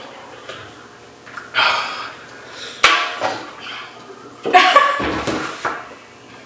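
Pained gasps, sharp breaths and groans from people whose mouths are burning from a super-hot chili chip, in three loud bursts, with a sharp click just before the middle.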